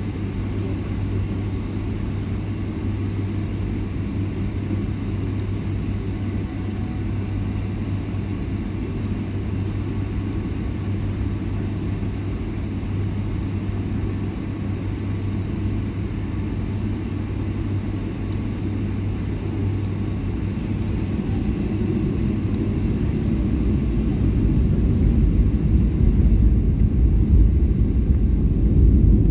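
Airliner jet engines heard from inside the cabin while taxiing: a steady low rumble with a constant hum. Over roughly the last eight seconds it grows louder as engine power comes up.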